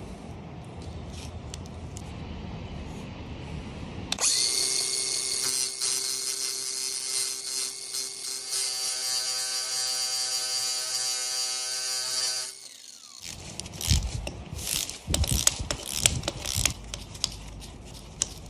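Angle grinder starts about four seconds in and runs for about eight seconds, grinding into a link of a metal motorcycle drive chain, then spins down. After it, sharp clicks and knocks of the chain being handled and fitted into a chain breaker.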